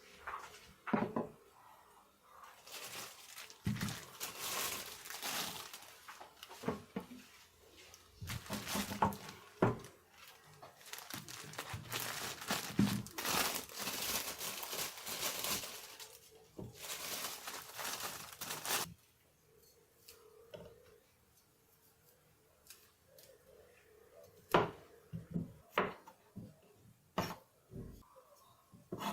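Packaging crinkling and tearing in repeated bursts during kitchen handling, then a few sharp knocks near the end.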